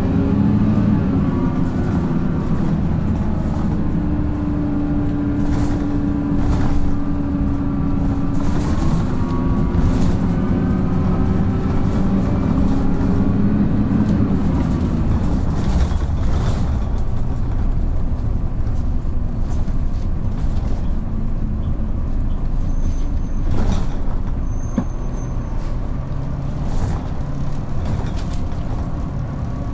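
Onboard sound of a Dennis Dart SLF single-deck bus with an Allison automatic gearbox under way. The diesel engine and transmission whine rise steadily in pitch for about fourteen seconds as it accelerates, then fall away as it eases off. Interior rattles and knocks run throughout, with a few short high squeals near the end.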